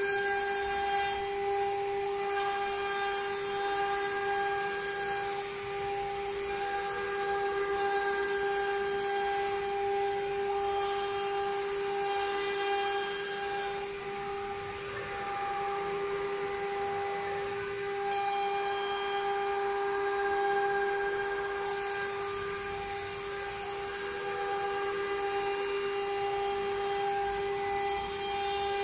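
Spindle of a two-head 6090 CNC router running at a steady, even whine while its bit cuts into a wooden board, with the rasp of the cut underneath.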